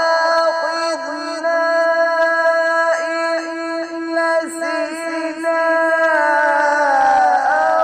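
A man reciting the Quran in melodic tajwid style, drawing out long held notes that waver and bend in pitch, with the melody sliding downward near the end.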